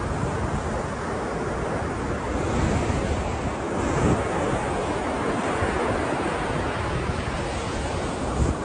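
Ocean surf washing in a continuous wash of breaking waves, swelling a little about three to four seconds in, with wind rumbling on the microphone.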